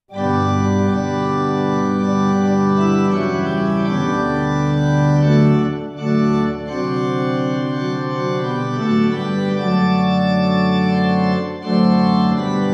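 Organ playing slow, sustained chords as an opening voluntary, with short breaks between phrases about six seconds in and near the end.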